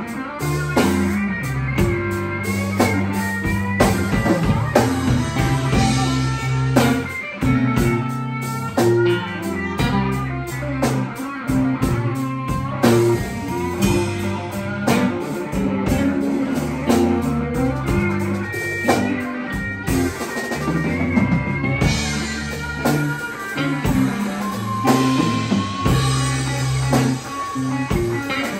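Live slow blues band playing an instrumental passage: an electric guitar lead with bent, sliding notes over electric bass and a drum kit, with no vocals.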